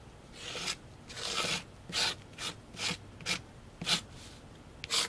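Metal palette knife scraping and smearing thick whipped spackle paste across a stencil, in about eight uneven strokes, the first ones longer and the later ones short and sharp.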